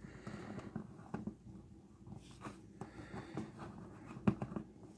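A hand handling and turning a 1:18-scale plastic action figure: faint scuffs and small clicks, with one sharper knock a little after four seconds in.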